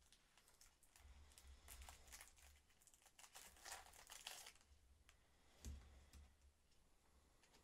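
Foil trading-card packet crinkling and being torn open, a quiet run of crackles lasting about three seconds, followed by a single soft knock.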